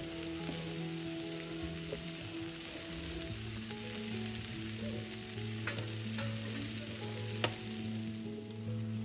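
Chicken burger patties sizzling on a grill: a steady frying hiss, with a few light clicks in the second half, the sharpest about seven seconds in.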